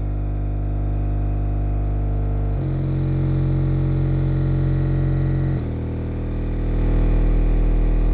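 American Bass XMAXXX 18-inch subwoofer on 2000 W playing steady low test tones in a stepped frequency sweep. The pitch changes abruptly about every three seconds, and the last tone has the heaviest bass. A buzzing rattle rides on the tones, from latches on the table vibrating, not from the subwoofer.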